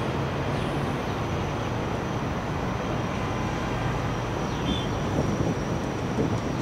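Freight train rolling past, its wagons' wheels on the rails making a steady noise, with a few faint knocks near the end.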